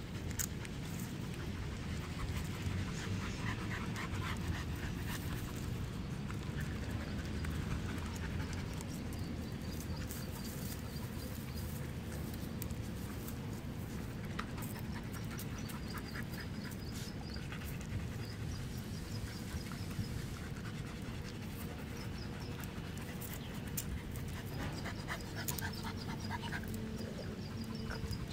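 Dogs panting steadily in short, quick breaths, over a steady low rumble.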